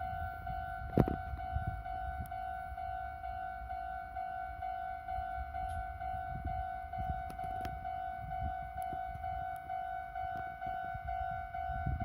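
Japanese railway level-crossing alarm ringing its repeating electronic "kan-kan" tone as the crossing closes for an approaching train, with a single sharp knock about a second in.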